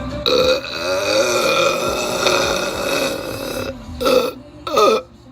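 A person burping: one long drawn-out burp lasting about three and a half seconds, held on a steady pitch, followed by two short burps near the end.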